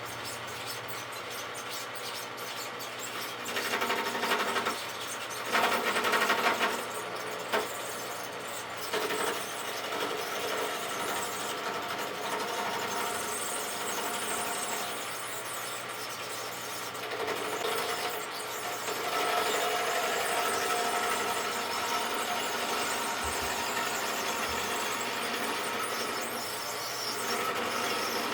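Rockwell wood lathe running with a turning tool cutting into the spinning blank to round it over, under a steady motor hum. The cutting swells louder about four and six seconds in.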